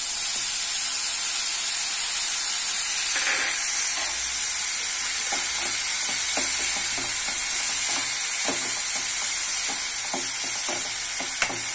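Chopped onions, green chillies and tomatoes sizzling in oil in a nonstick kadai, with a steel spoon scraping and tapping against the pan as it stirs them, and one sharper tap near the end.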